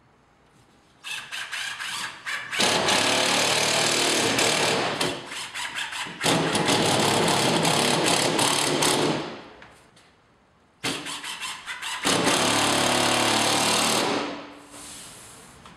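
Cordless screw gun running in several runs of a few seconds each, each begun with a stutter of short trigger pulses, driving fasteners through a plasterboard sheet into the wall.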